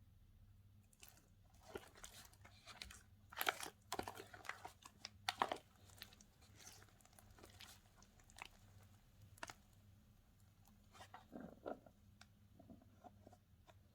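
Slime being squeezed and poked by hand, giving irregular wet crackles and clicks, thick in the first half, sparse after, with a short burst again near the end.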